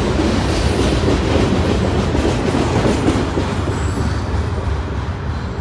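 Ballast train's loaded hopper cars rolling past, a loud rumble of steel wheels on the rails. The sound eases off over the last couple of seconds as the end of the train goes by.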